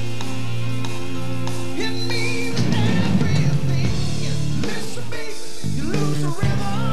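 Rock music with guitar and singing, playing steadily.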